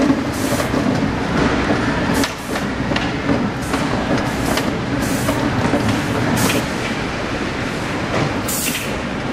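Automated warehouse roller conveyors and tote lift running: a steady mechanical whir with frequent sharp clacks at irregular intervals, several each second at times, as the plastic totes travel along the line.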